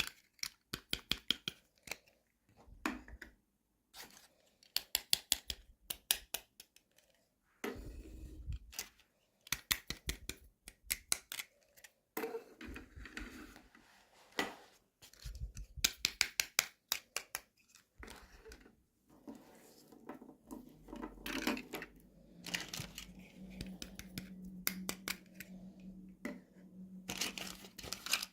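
Toy packaging being opened by hand: bursts of quick, sharp snips and clicks, several a second, with tearing and crinkling of plastic wrap in between. A faint steady low hum joins in from about two-thirds of the way through.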